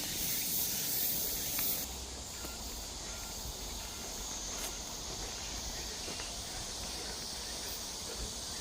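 Steady high-pitched drone of insects in summer woodland, louder for about the first two seconds and then continuing more softly.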